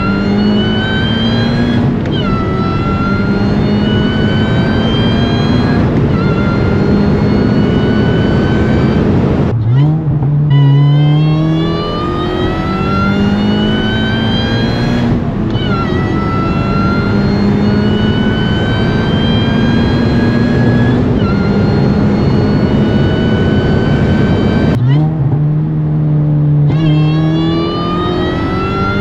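Supercharged R53 Mini Cooper S engine pulling hard, its supercharger whine and intake noise rising steadily in pitch with the revs, then dropping back at each upshift, several times over. Its supercharger runs a smaller pulley (16% overdrive), with an aftermarket intake manifold, charge pipe and air box.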